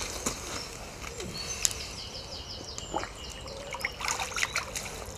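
Water splashing and trickling in the shallows as a tench is released at the lake's edge, growing busier in the second half. A bird sings a quick run of repeated falling notes about two seconds in.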